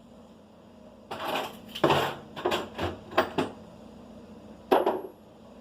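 Metal tools and small parts clinking and clattering as they are rummaged through in search of a screw: a cluster of sharp clatters in the first half, then one more clink about a second before the end.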